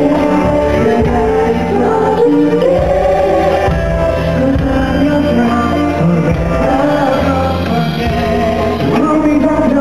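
Live K-pop concert music with singing, loud and continuous, recorded from among the audience.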